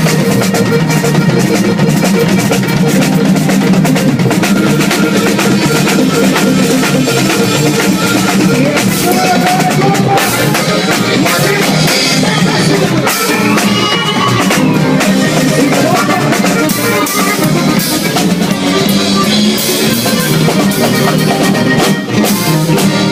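Loud band music with a drum kit and guitar, playing without a break. A few short gliding tones come in about halfway through.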